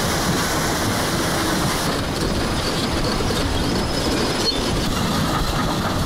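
Tracked heavy machinery moving: a diesel engine running under the steady clanking and squealing of steel crawler tracks.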